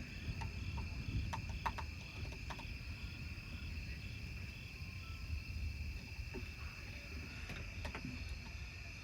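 Crickets chirping in a steady, continuous chorus over a low, constant rumble, with a few faint clicks in the first couple of seconds.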